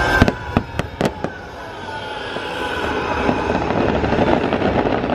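Fireworks bursting: a quick run of about five sharp bangs in the first second and a half, then a spreading crackle of many small pops that builds toward the end.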